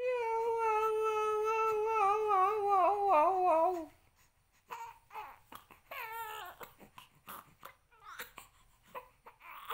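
Infant crying: one long wail of about four seconds that holds its pitch, then wavers and falls at the end, followed by quieter, shorter whimpers.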